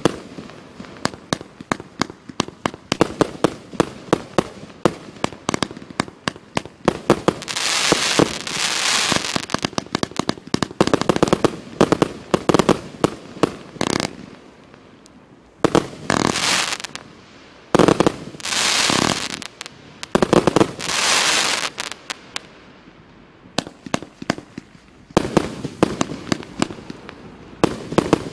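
Aerial fireworks going off in quick succession: a rapid run of sharp bangs and pops, broken by several stretches of continuous hissing that each last a second or two.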